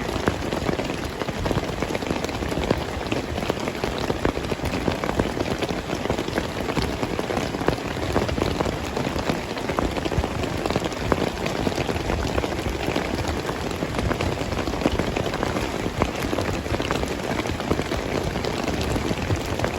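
Heavy rain falling steadily: a dense, even hiss with many individual drops ticking on surfaces.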